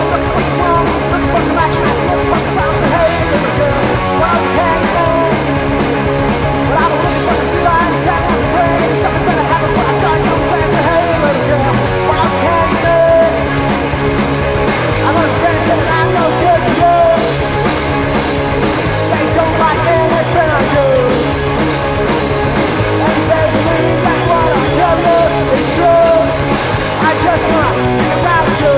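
Punk-tinged rock and roll band recording with singing, playing at a steady, full level.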